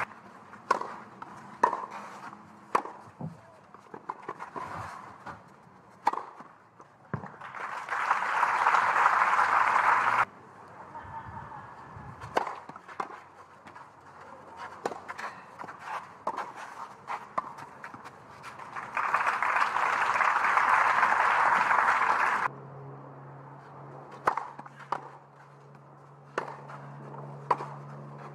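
Tennis rallies: a ball struck by rackets in sharp, spaced hits, with two spells of crowd applause after points won, about 8 seconds in and again about 19 seconds in.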